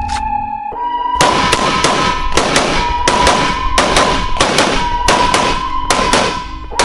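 A rapid, irregular string of gunshots at a firing range, starting about a second in and stopping near the end, over background music with a long held tone.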